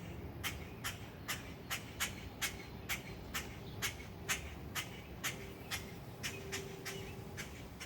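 An adult bird, parent of a grounded fledgling, giving short, sharp alarm calls in a steady series of about two and a half a second.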